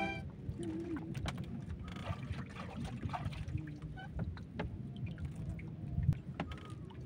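Small outrigger fishing boat rocking with water lapping at the hull, with scattered light clicks and knocks from fishing line and bait being handled on board.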